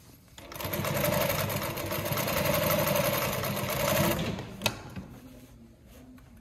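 Consew 146RB-1A-1 walking-foot industrial sewing machine running steadily for about four seconds as it stitches through layered cotton fabric, then stopping, followed by a single sharp click.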